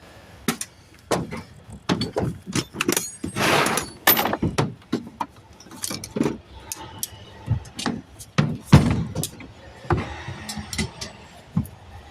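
Irregular knocks, clanks and thumps of hand tools and a box being picked up and handled, likely tire spoons (tire irons) being fetched, with a short scraping rush about three and a half seconds in.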